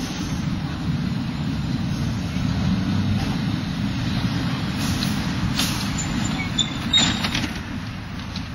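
Busy city street traffic near tram lines, a steady low rumble of passing vehicles, with a few sharp clicks and a brief high squeal about six to seven seconds in.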